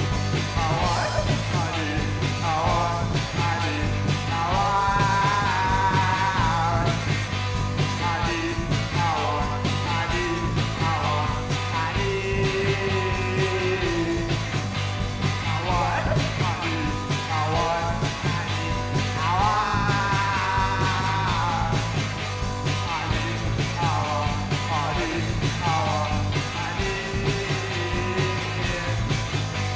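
Three-piece rock band playing live: electric guitar, electric bass and drum kit, with a sung lead vocal.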